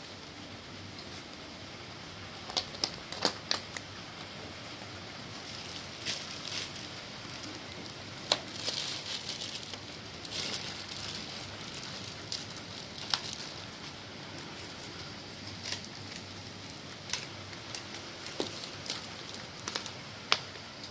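Plastic-wrapped food boxes and thin plastic tubs crinkling and clicking as they are handled, in scattered short clicks and rustles over a steady hiss.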